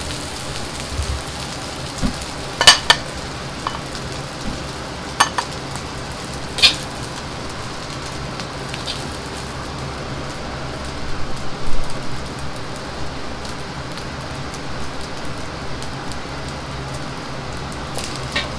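Fried rice sizzling in a wok over a gas wok burner, with a steady low rushing underneath. The metal ladle clinks sharply against the wok a few times in the first seven seconds, and there is a short run of knocks and scraping about eleven seconds in as the rice is scooped onto the plate.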